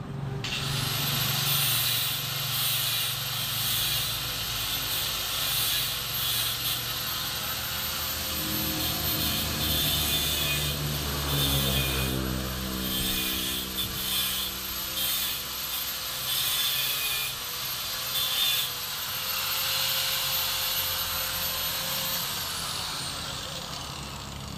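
Handheld electric power tool running on the motorcycle's metal frame: a high motor whine over a grating hiss, dipping briefly in pitch a few times under load. It winds down near the end as it is switched off.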